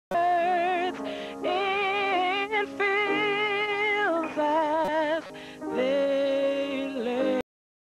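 Gospel vocal group singing a slow song, holding long notes with a wide vibrato. The sound cuts out completely for about half a second near the end.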